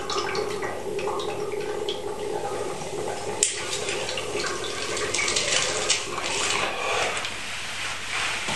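Water bubbling in a tall glass bong as smoke is drawn through it: steady and pitched for about three seconds, then rougher and noisier after a sharp click.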